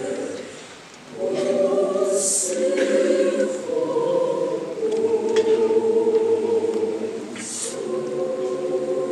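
Mixed youth choir singing in sustained, held chords, breaking off briefly about a second in before the next phrase comes in.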